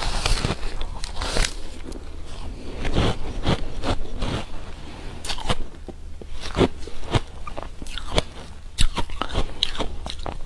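Close-up eating of frozen ice: repeated sharp bites and crunching chews, irregular crackling crunches one after another.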